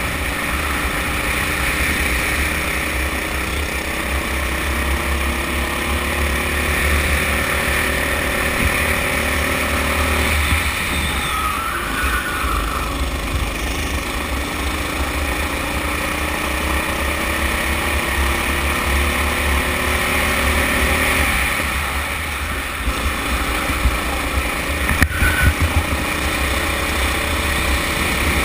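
Rental kart's Honda four-stroke engine under way, its pitch climbing slowly along the straights and dropping twice, about ten and twenty-two seconds in, as the throttle is lifted. A steady low rumble runs underneath, and a few sharp knocks come near the end.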